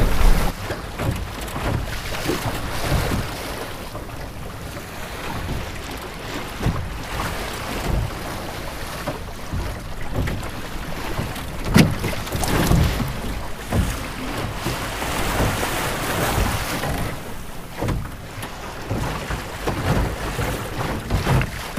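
Water rushing and slapping against the hull of a Melonseed sailing skiff under way in a chop, with wind buffeting the microphone. A sharper knock stands out about halfway through.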